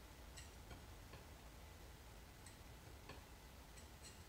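Near silence: room tone with a low hum and a few faint, irregular clicks.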